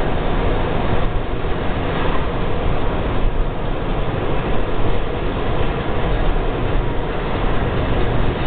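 Steady road and wind noise of a moving car, mixed with a freight train rolling along the tracks beside it.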